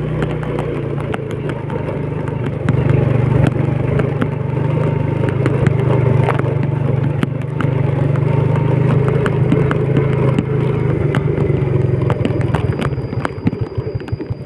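Old Yamaha Vega underbone motorcycle's four-stroke single-cylinder engine running steadily while riding a bumpy dirt track, with many sharp clicks and rattles from the bike jolting over the rough ground. Near the end the engine note drops away.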